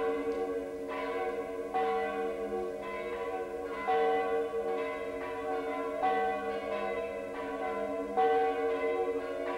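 Several church bells ringing in a peal, a new stroke about every second, each note ringing on into the next.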